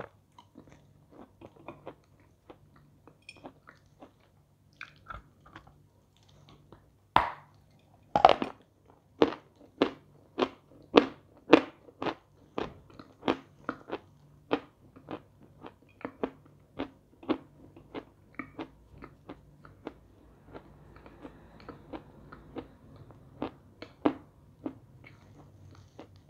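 Lumps of edible chalk being bitten and chewed. Two loud bites come about seven seconds in, then steady crunching about twice a second, easing to softer chewing near the end with one more loud crunch.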